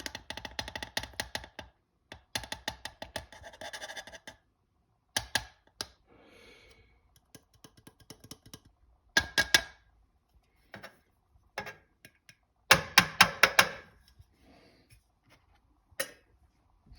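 Several bursts of rapid clicking and tapping as freshly ground coffee is dispensed into an espresso portafilter.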